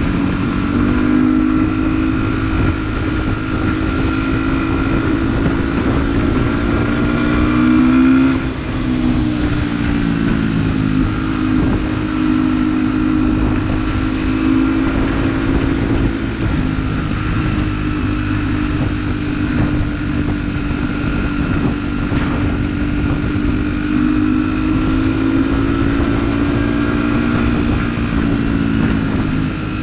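Beta RR 125 LC enduro motorcycle's single-cylinder engine running at steady riding revs. The pitch rises slightly, dips sharply about eight seconds in, then holds fairly steady with small rises and falls.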